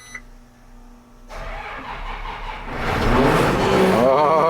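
Combine's diesel engine being started: the starter cranks for about a second and a half, then the engine catches and runs up loud.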